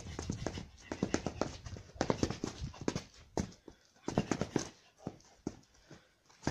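A man shadowboxing: quick clusters of scuffs and knocks from his footwork and punches, coming in bursts with short gaps between them.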